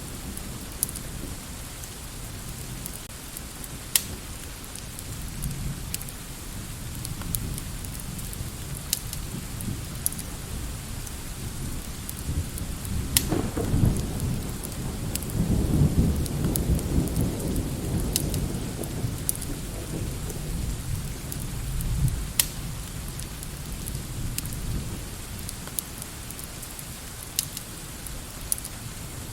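Steady rain with a long roll of thunder: a deep rumble builds about halfway through, swells for several seconds and fades, with a last swell a little later. Sharp crackles from a wood fire are scattered throughout.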